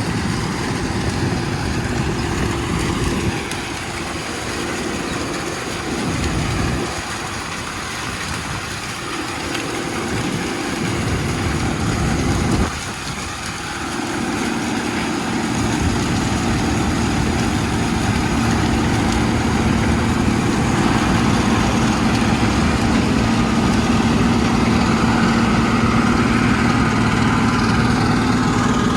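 Heavy diesel farm machinery running under load during corn harvest. The low engine rumble swells and eases several times in the first half, then settles into a steady, slightly louder hum from about halfway through.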